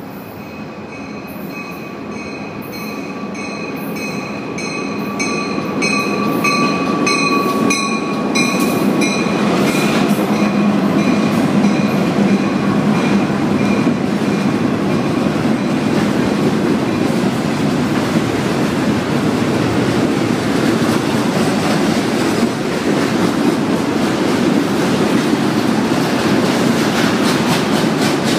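Freight train of flatcars carrying garbage containers rolling past, getting louder over the first six seconds and then a steady loud rumble of steel wheels on rail with clickety-clack. For the first nine seconds or so a bell rings repeatedly above the rumble, then fades out.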